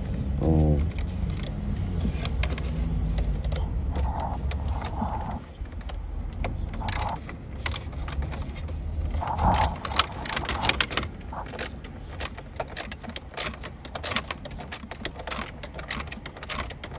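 Ratchet and socket being worked on a dash trim bolt: irregular sharp metallic clicks and rattles, thickest over the second half, with a low steady hum under the first few seconds.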